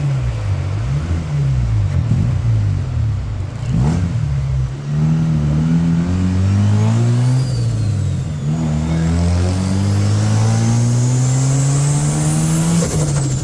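Four-port rotary engine accelerating. The revs rise and fall over the first few seconds, then climb steadily through a gear, drop at a gear change about eight seconds in, and climb again.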